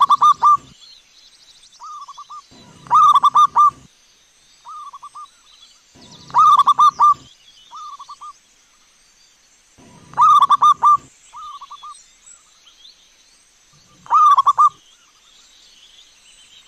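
Zebra dove (perkutut) cooing: a loud phrase of quick staccato coos comes about every three and a half seconds, with shorter, softer phrases in between. A faint steady high tone and faint high chirps sit behind.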